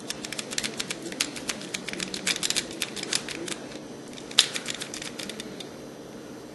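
Rapid metallic clicking of a lock pick raking the pins of a 4-pin Ultra UHP 55015 discus padlock under light tension, with one sharper click about four and a half seconds in, followed by a few softer clicks.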